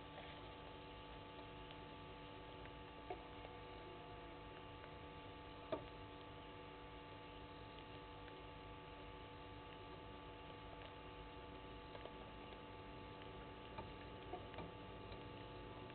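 Faint, steady electrical hum in the camera's audio feed, with a few soft sharp clicks; the loudest click comes a little before six seconds in.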